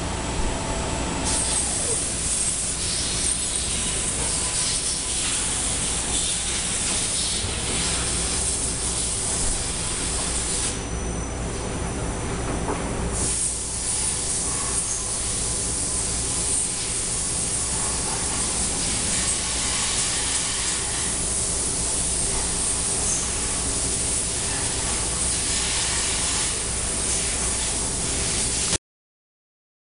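Machine-shop noise from running machinery: a steady hiss over a low hum. The hiss drops out briefly near the start and again for about two seconds partway through. The sound cuts off abruptly near the end.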